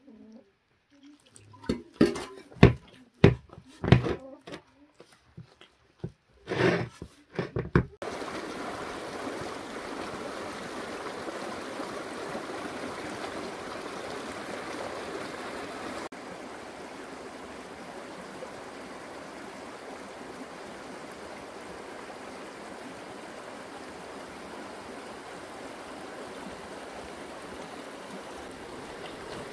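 For about the first eight seconds, a string of loud slaps and knocks as flour and water are worked by hand into dough in a metal bowl. Then a shallow stream runs steadily over rocks, a little quieter after a cut about halfway through.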